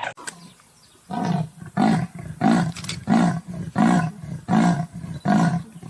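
Lion roaring: a series of seven deep, evenly spaced grunts, about one and a half a second, starting about a second in.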